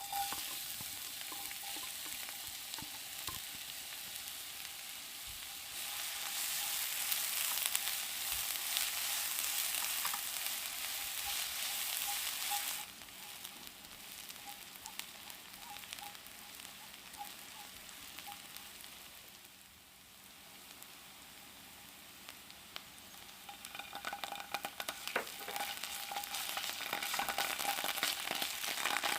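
A sizzling hiss full of fine crackles. It grows louder for several seconds, falls back about halfway through, and swells again near the end.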